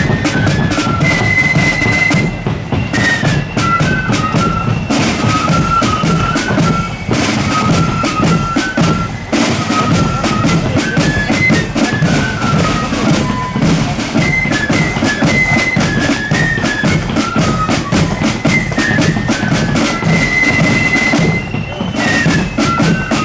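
Marching band playing a high tune on wind instruments over rapid snare and bass drumming.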